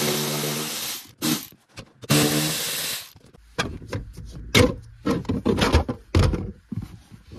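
A small electric socket driver runs in two bursts of about a second each, backing out the 8 mm bolts of the plastic lower dash cover under the glovebox. Then come a string of plastic clicks and knocks as the cover is unclipped and lowered away.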